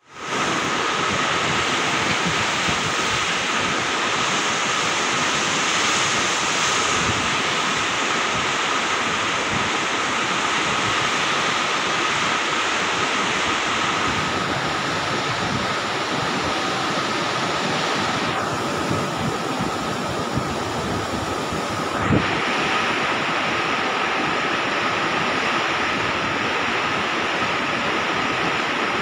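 Steady rushing noise of wind on the microphone, with a faint steady high whistle running under it. A single brief click comes about 22 seconds in.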